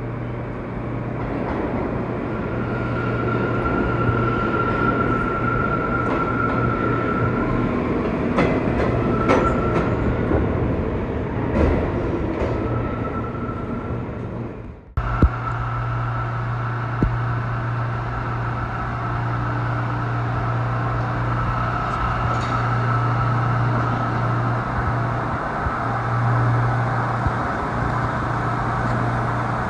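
New York City Subway trains running through an underground station: a steady rumble and hum of the cars on the track, with a high whine that comes and goes in the first half. The sound breaks off sharply about halfway and picks up again at once.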